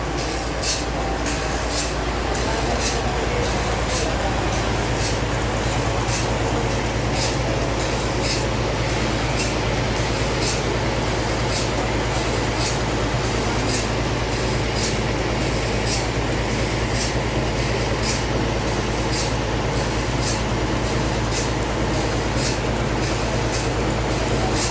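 Sawmill machinery running steadily: a constant low hum and mechanical din, with a sharp, regular ticking about twice a second.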